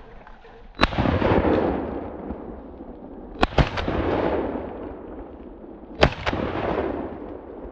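Three shotgun blasts about two and a half seconds apart. Each is followed closely by a second sharp crack and by a rolling echo that fades over about a second.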